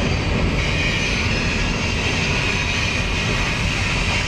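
Covered hopper cars of a freight train rolling past: a steady rumble of steel wheels on rail, with a steady high tone above it.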